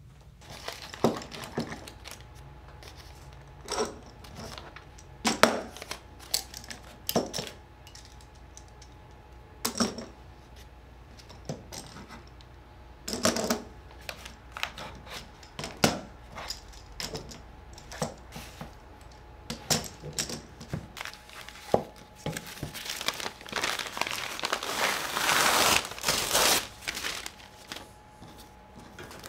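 Bar clamps being loosened and laid down on a wooden workbench: a string of separate clacks and knocks. Near the end, a few seconds of rustling and tearing as folded newsprint is pulled off a freshly glued veneer panel; this is the loudest part.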